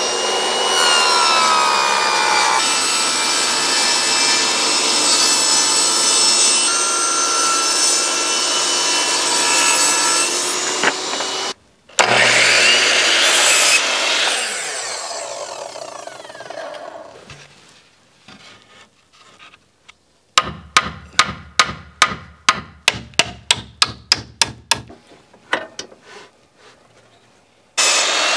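Power saws cutting thin cedar board. A jobsite table saw rips the board with a steady whine for about eleven seconds and then cuts off. A miter saw then whines up through a cut and winds down, followed by a run of quick ticks, about four or five a second, and a saw starts up again near the end.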